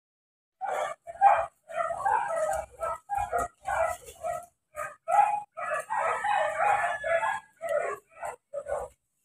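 Dogs barking in quick, irregular bursts, with a longer call about six seconds in.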